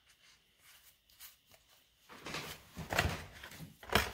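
Cardboard booster box and foil booster packs being handled. After about two seconds of quiet come rustling and scraping, with a sharp knock near the end.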